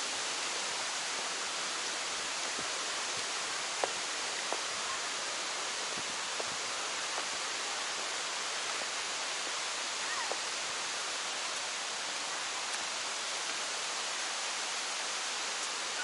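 Steady rushing of the Kuang Si waterfall's cascading water, an even hiss, with a few faint clicks about four to seven seconds in.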